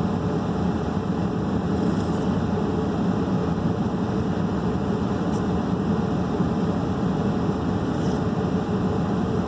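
Steady low mechanical hum with a few faint, brief rustles.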